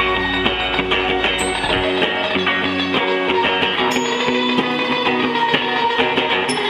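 A rock band playing an instrumental passage: electric guitars over a drum kit. The deep low end drops out about two seconds in.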